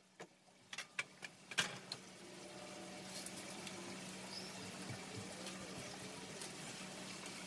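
Hand handling of a wooden board on a miter saw table: a few sharp knocks in the first two seconds as the board is set down and shifted, then faint ticks and rubbing while a tape measure is pulled out along it.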